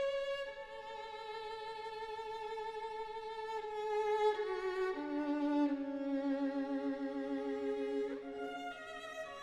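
Solo violin playing a slow melody of long held notes with vibrato, stepping down to a low note about five seconds in and climbing again near the end.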